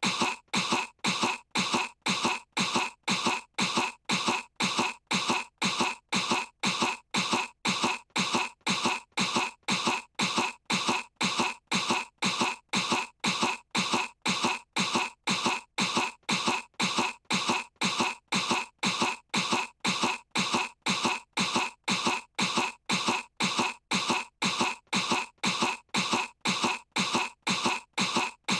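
A young cartoon girl's fake cough: one short cough looped over and over at an even pace, a little under two a second, put on to pretend to be sick.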